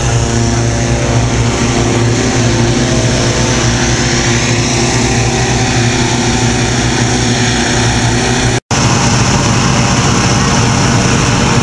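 Petrol-engined balloon inflator fans running steadily, a loud constant engine hum with propeller whirr, during cold inflation of the balloon envelopes. The sound cuts out for an instant near the end and picks up again unchanged.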